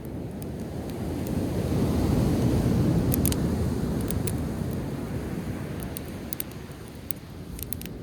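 Ocean wave surging in and washing ashore, swelling over about two seconds and then slowly easing off, with scattered sharp pops and crackles from a driftwood campfire.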